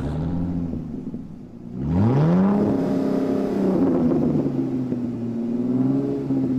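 Supercar engine revving: it comes in suddenly at a low, rough speed, then about two seconds in the revs sweep up quickly and are held high, easing off a little near the end.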